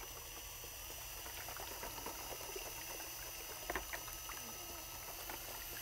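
Faint churning and sloshing of liquid coating in a plastic bucket, stirred by a Jiffy mixer paddle on a cordless drill while two-part polyaspartic sealer is blended, with a couple of light knocks a little past halfway.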